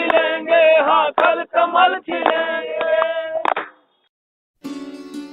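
A song sung to music, ending on a long held note about three and a half seconds in. After a brief gap, plucked string music starts near the end.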